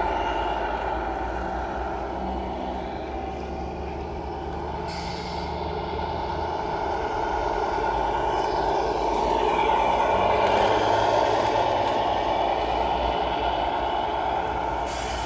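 Radio-controlled model truck running, its engine sound steady with swells in level, cut through by a short hiss about five seconds in and again at the end.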